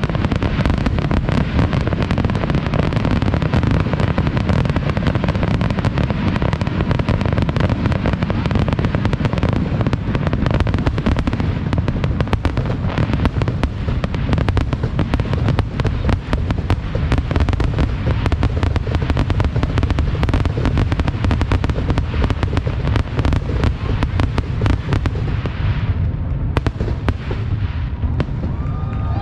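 Fireworks display going off in a dense, continuous barrage of rapid bangs with no pauses between them.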